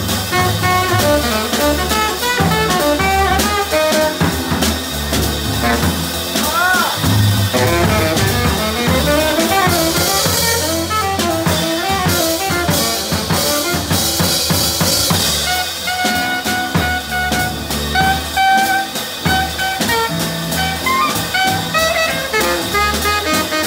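Live small jazz combo: a saxophone solo over double bass, drum kit and piano, with the drummer's cymbals louder for a few seconds in the middle.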